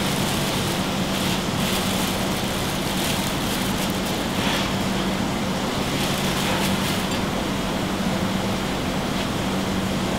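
Steady whooshing noise of a commercial kitchen extraction hood and ventilation running, with a constant low hum. Light crinkling of a plastic salad-mixing bag comes and goes over it.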